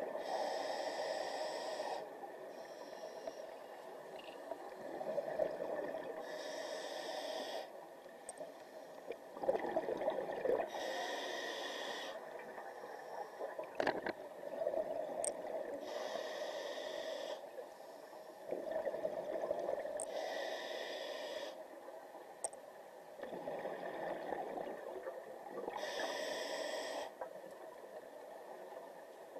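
Scuba diver breathing through a regulator underwater: a hissing inhale through the demand valve, then a gurgling rush of exhaled bubbles, repeated over several slow breaths.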